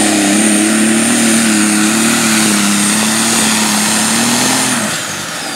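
Turbocharged engine of a John Deere 7830 light super stock pulling tractor running flat out under load while it drags the sled, with a steady high turbo whine over it. Near the end the engine comes off the throttle and the whine falls away in a downward glide.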